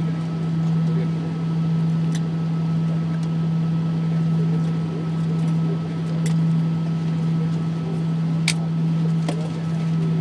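Airbus A319 cabin drone while taxiing with the engines at idle: a steady low hum with a faint, steady high whine. A few soft clicks sound, the clearest near the end.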